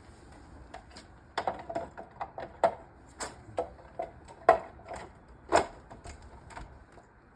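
Recycled-plastic Wallpods living-wall pods being clicked into place on their wall-mounted row: an irregular series of sharp plastic clicks and knocks, loudest in the middle.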